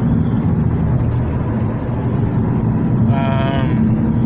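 Car with a muffler delete (straight exhaust), heard from inside the cabin with the windows rolled up: a steady, drony exhaust and engine hum while driving. A short, higher-pitched tone sounds about three seconds in.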